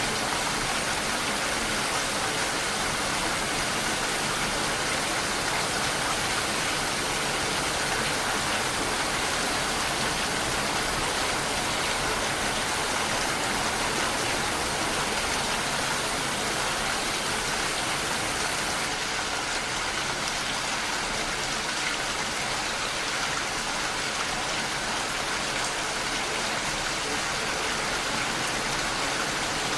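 Steady rain falling, an even hiss of many drops with no breaks.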